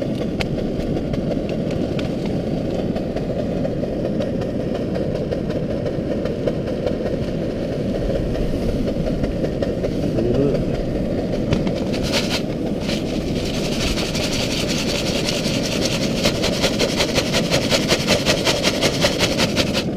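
MSR Dragonfly liquid-fuel stove burning with a steady low roar. Over it, a hand rummages in a plastic dehydrated-food pouch, with rapid crinkling from about two-thirds of the way through.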